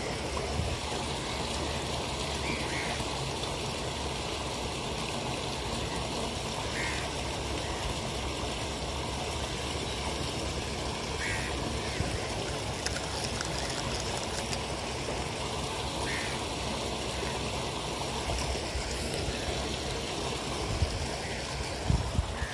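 Steady rushing background noise outdoors, with a faint short chirp about every four or five seconds and a few soft knocks near the end.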